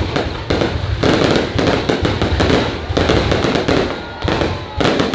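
Fireworks going off in rapid volleys: dense crackling and repeated sharp bangs of bursting shells, with fresh bursts starting about a second in and again near the end.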